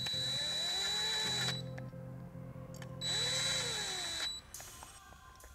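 DeWalt cordless drill running twice in short bursts of about a second and a half, driving bolts snug into a billet aluminium bracket. The second run starts about three seconds in, and each run rises and then falls in pitch as the trigger is squeezed and eased.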